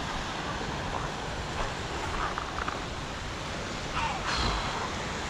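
Small waves washing on a pebble shore, with wind buffeting the microphone: a steady hiss over a fluttering low rumble.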